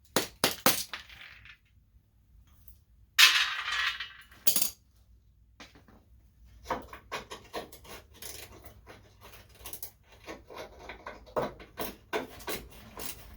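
Metal hand tools and small metal parts clinking and rattling as a wrench is worked on a stuck fastener. A few sharp clicks at the start, a louder rasping scrape a little over three seconds in, then a long run of small, irregular metallic clicks.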